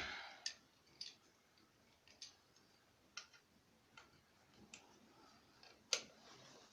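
Scattered sharp clicks and taps from hand tools and parts being handled during a tiller repair, about one a second, with a louder knock at the start and another near the end.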